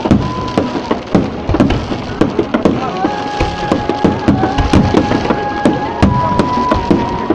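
Fireworks display: a rapid, irregular run of bangs and crackles from bursting aerial shells, several per second. About three seconds in, a steady high tone joins and holds.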